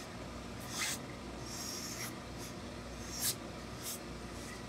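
Hose-fed tailor's steam iron pressing a suit sleeve: several short hisses of steam, the longest about a second and a half in, as the iron is pushed and rubbed over the cloth.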